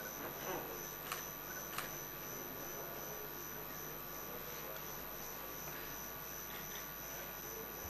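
Quiet room tone with a steady electrical hum, a faint murmur of a voice in the first half-second, and two light clicks about one and two seconds in.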